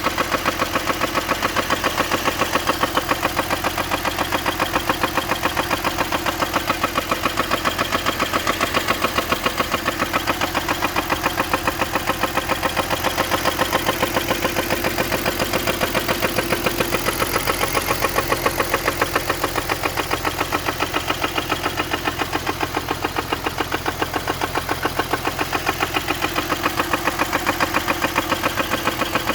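BMW E46's M54B30 3.0-litre straight-six engine running steadily with a rapid, regular knock throughout, a knock that the owner suspects is rod knock or a spun bearing.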